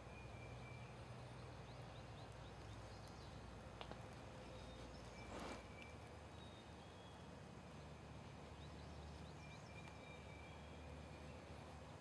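Near silence: quiet open-air background with faint, short, high chirps, a soft click near four seconds in and one brief slightly louder sound about five and a half seconds in.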